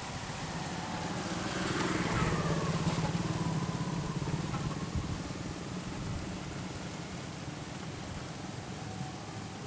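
An engine passes by, growing louder about two seconds in with its pitch falling as it goes, then fading to a steady low hum.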